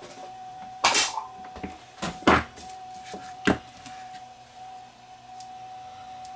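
Battery spot welder firing a 15-millisecond pulse through handheld probes, a sharp snap about a second in, as it welds a nickel tab onto the positive end of a nickel-metal-hydride AA cell; at this setting the weld is still too hot. A few sharp knocks follow, the loudest soon after the snap, as the probes are put down on the bench, over a faint steady tone.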